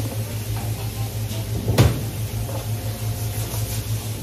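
A single sharp knock a little under two seconds in, over a steady low hum.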